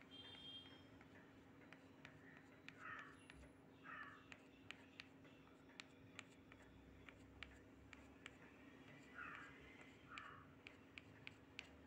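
Near silence with faint calls in pairs, twice, and scattered light ticks through the second half.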